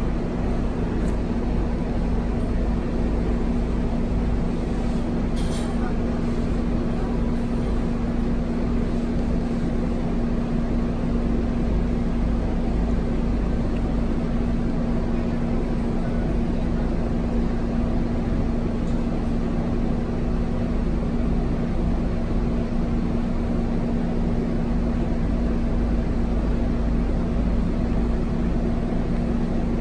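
Scania K230UB city bus's five-cylinder diesel engine idling steadily while the bus stands at a stop, heard from inside the passenger cabin as an even hum. A brief click about five seconds in.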